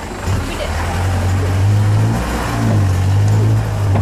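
Safari jeep engine pulling under load, rising in pitch and level shortly after the start, easing off briefly a little past halfway, then pulling again.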